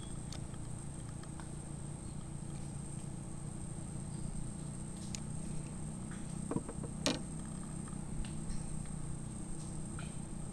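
Steady low hum under a thin, steady high whine, with a few light knocks and taps a little past halfway through.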